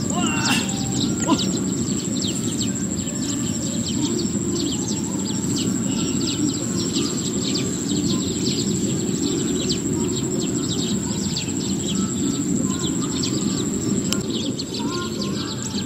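Open-field ambience: many quick, falling bird chirps over a steady low rushing noise, with a constant thin high-pitched whine.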